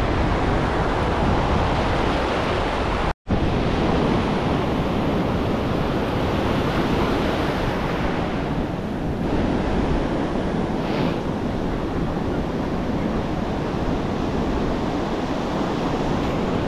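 Ocean surf breaking and washing over shallow sand around the angler's feet, with wind buffeting the microphone. The sound cuts out completely for an instant about three seconds in.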